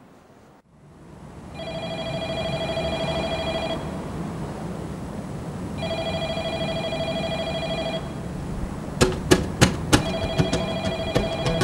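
Telephone ringing with a trilling electronic ring: two rings of about two seconds each with a two-second pause, and a third starting near the end. A series of sharp knocks comes in about nine seconds in.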